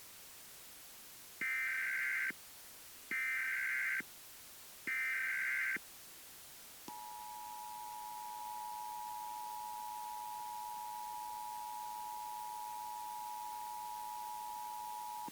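Emergency Alert System header: three short bursts of screechy SAME data tones, each just under a second, followed about seven seconds in by the EAS two-tone attention signal, two close pitches sounding together and held steady.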